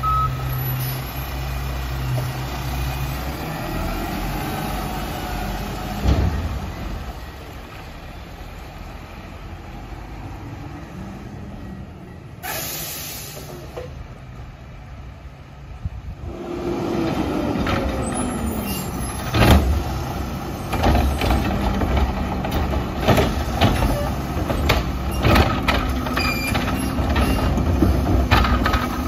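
Mack LR garbage truck's engine running, at first close by and then quieter as the truck moves off, with a short air-brake hiss near the middle. In the second half the engine revs up and down and there are sharp knocks and clatters as the front Curotto-Can arm works.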